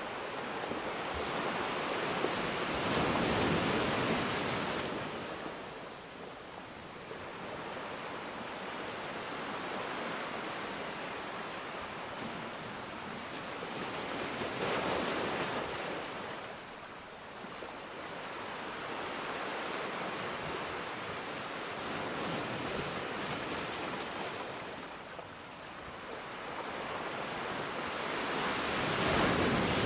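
Sea waves breaking and washing up a beach, rising in four surges several seconds apart over a steady hiss.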